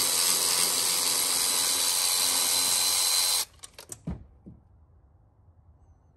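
A handheld drill-type power tool running at one steady speed with a thin high whine, cutting off about three and a half seconds in. A few light clicks and knocks follow.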